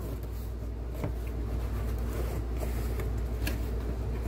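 Cardboard pistol box being handled and opened by hand: cardboard rubbing and sliding, with a few light clicks, one about a second in and another past three seconds in, over a steady low hum.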